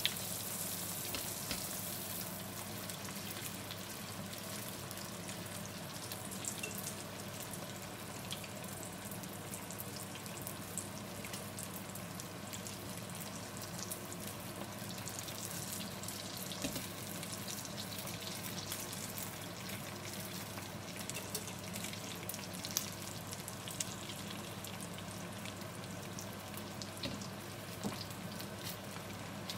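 Rice-paper spring rolls deep-frying in a wok of hot oil: a steady sizzle with fine crackling and a few sharper pops.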